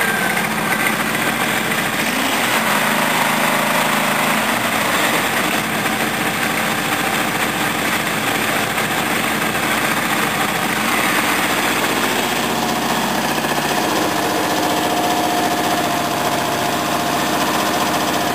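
Small overhead-valve ride-on mower engine running steadily at idle, low on petrol. The sound of the engine changes slightly about four seconds in and again about twelve seconds in.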